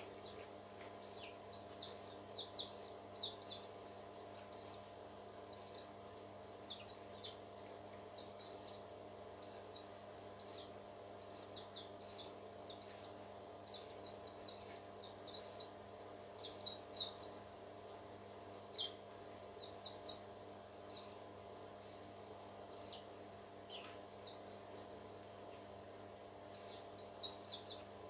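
Newly hatched parrot chicks cheeping: short, high chirps in quick clusters of two to four, repeated every second or so, over a steady mechanical hum.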